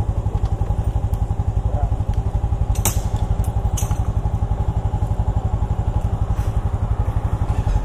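Yamaha Lagenda 115ZR underbone motorcycle engine idling with a steady, even pulse. A couple of sharp clicks come near the middle.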